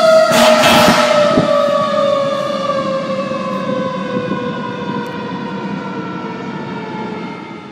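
Fire ladder truck's siren wailing: one long tone that slowly drops in pitch and fades as the truck drives away. A short burst of noise comes about half a second in.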